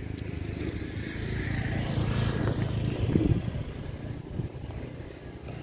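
A motor vehicle passing by: its engine hum grows louder over the first two to three seconds, then fades away.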